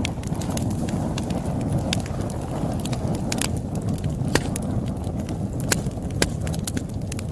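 Campfire burning, with a steady low rumble of flames and irregular sharp crackles and pops from the burning wood.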